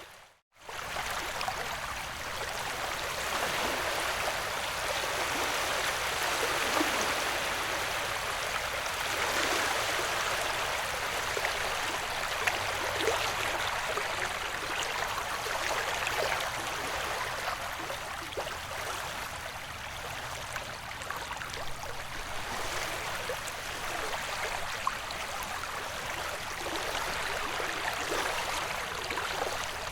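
Ocean wave white noise: a steady wash of water noise that swells and eases slowly. It cuts out completely for a moment just after the start, then resumes.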